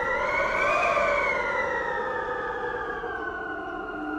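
A long, drawn-out siren-like wail with many overtones. It rises a little about a second in, then slowly sinks in pitch and fades.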